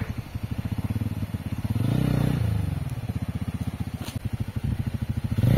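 Off-road motorcycle engine running at low revs with even exhaust pulses. The revs rise briefly about two seconds in, then settle back.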